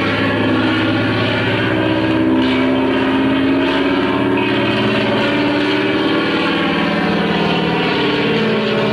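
Piston-engine propeller aircraft running, a steady engine drone whose pitch drifts slowly up and down.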